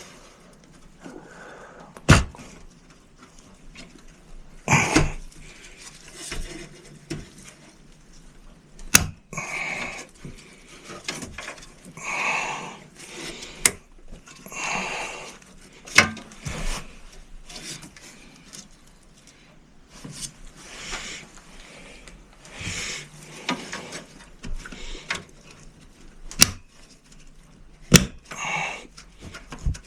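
Hands working inside a Dell desktop computer case, pressing and checking whether components are seated. It makes a series of sharp plastic clicks at irregular intervals, with rustling and scraping handling noise between them.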